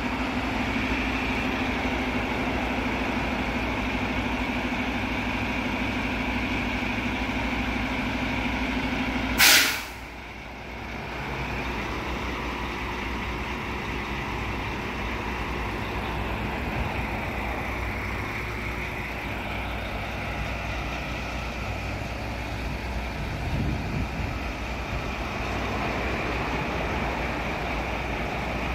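Front-loader garbage truck idling with a steady hum. About a third of the way in there is a short, loud hiss of released air, typical of the truck's air brakes, and the steady tone drops away with it while the truck keeps running more quietly.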